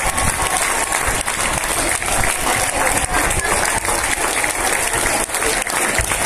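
Crowd of spectators applauding steadily, a few sharp individual claps standing out from the mass of clapping.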